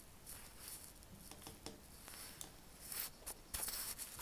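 Soft rustling of fabric being handled, with a few light clicks, growing louder near the end.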